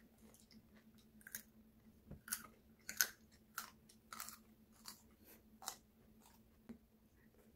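Children biting and chewing raw carrot and cucumber sticks: a string of crisp crunches for a few seconds, loudest about three seconds in. A faint steady hum sits underneath.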